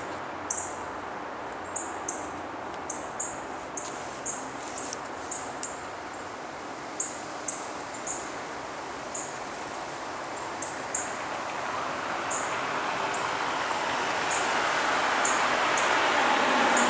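City street traffic noise, growing louder from about halfway through as a car approaches. Frequent short, high-pitched chirps sound over it at irregular intervals.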